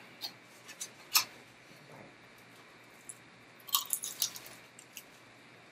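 Crispy fried chicken wings being bitten and chewed: scattered crunches, with a quick run of several crunches about four seconds in.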